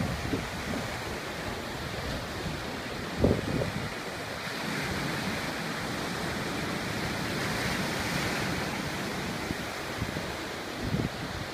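Ocean surf breaking and washing in a steady rush, with wind buffeting the microphone in short low thumps, the strongest about three seconds in and a few more near the end.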